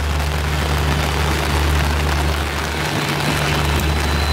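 Diesel locomotive engine running with a low, steady rumble as a passenger train rolls into the station, with rain hissing down. A faint high whine comes in near the end.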